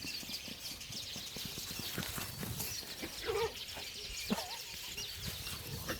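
Yorkie puppies scampering about on the ground: a run of soft, uneven taps and rustles, with a couple of short squeaks about three and four seconds in.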